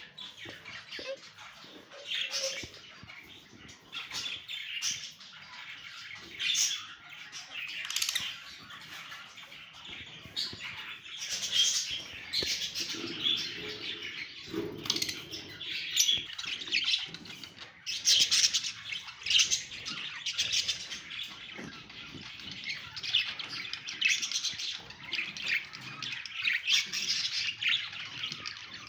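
Birds chirping: a steady stream of short, high-pitched calls from several birds, often overlapping.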